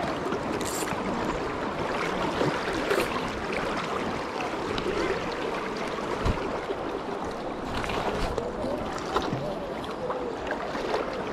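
Fast-flowing river water rushing steadily, with indistinct voices of nearby anglers in the background and a brief knock about six seconds in.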